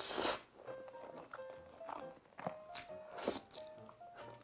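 Close-miked eating of spaghetti: a loud wet slurp of noodles right at the start, then several shorter slurps and chewing sounds. Soft lo-fi background music with gentle melody notes plays throughout.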